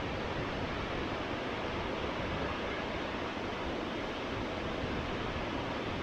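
Steady, even rush of falling water from Shōmyō Falls, a 350 m, four-tier waterfall pouring into its plunge pool.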